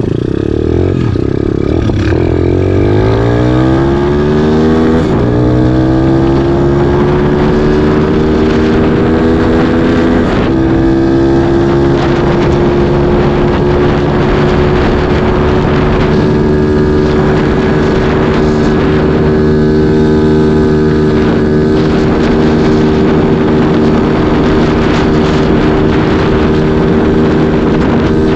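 125 cc single-cylinder dirt bike engine at full throttle, its pitch climbing through the gears with three brief dips at the shifts in the first ten seconds. It then holds steady at high revs near top speed.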